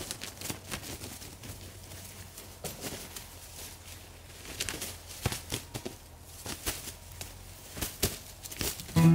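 A freshly shot wild turkey thrashing in its death throes, its wings beating irregularly against dry leaves and twigs on the forest floor. The beats come in scattered bursts, thickest in the second half. Guitar music starts right at the end.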